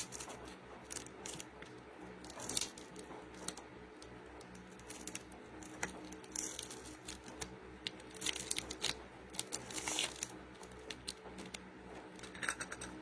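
Plastic crinkling and rustling in short bursts, with scattered sharp clicks, as gloved hands grip and turn a plastic bottle. A low steady hum runs underneath.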